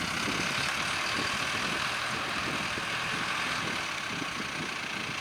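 Farm tractor engine running steadily at low revs.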